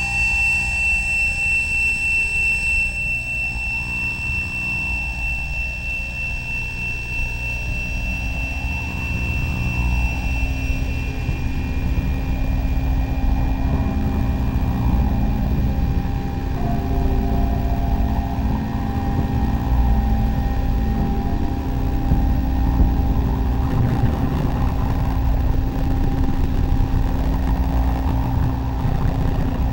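Improvised electronic noise music from a live sound system and turntable: a dense low rumble with steady tones over it. A high whine fades out about ten seconds in and a steady low hum comes in, while slow rising-and-falling tones drift in the middle.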